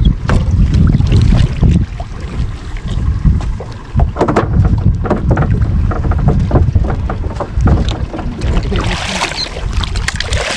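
Wind buffeting the microphone with a low rumble, broken by scattered knocks, and about nine seconds in a short burst of splashing as a hooked grouper thrashes at the surface beside the boat.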